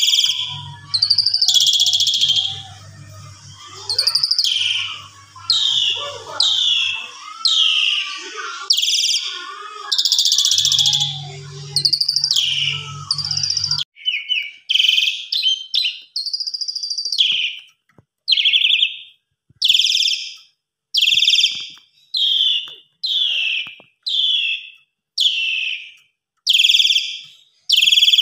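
Pied starling (jalak suren) singing loudly: a varied run of whistles and harsh notes, with a low hum underneath, then, after a break about halfway, a steady series of short, harsh, falling calls about once a second.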